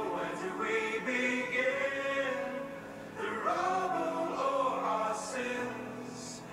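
Two children's songs mixed together: several voices singing at once over music.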